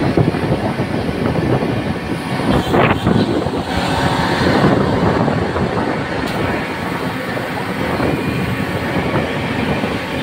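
High-pressure water jet from a flushing truck's hose lance spraying onto pavement and a concrete base, steady and loud, over the continuous running of the truck's engine and pump.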